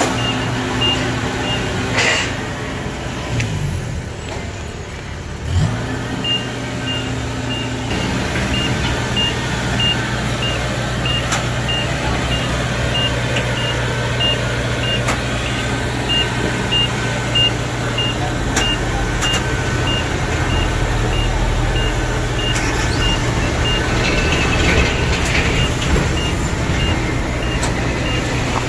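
Kubota DC70 combine harvester's diesel engine running steadily as the crawler machine is driven up a ramp onto a truck. A high electronic beeper sounds about twice a second for most of the time.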